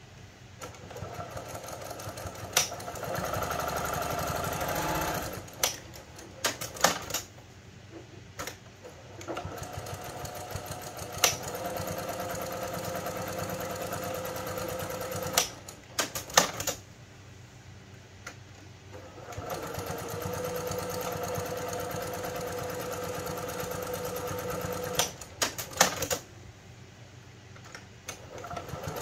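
Juki PQ-1500 straight-stitch sewing machine running in three steady stretches of several seconds each as it sews quilting stitches through a thick cloth pad, with sharp clicks in the pauses between the stretches.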